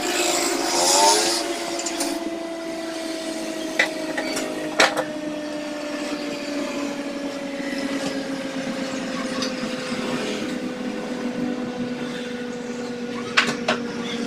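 A steady hum with two tones that slowly sink in pitch, from an unseen motor or appliance. Over it come a brief rustle about a second in and a few sharp clicks of tools on the circuit board during soldering work.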